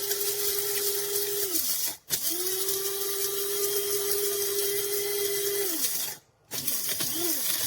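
Kaffe electric blade coffee grinder grinding a load of coffee beans, its motor whining steadily. The button is pulsed: the motor stops about two seconds in and again near six seconds, winding down in pitch each time, then starts again after a short pause.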